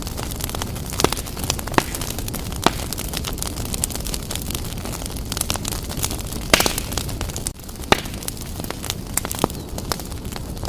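Wood fire burning briskly in a fireplace: a steady low rush of flames with sharp crackles and pops every second or so, and a louder burst of crackling about six and a half seconds in.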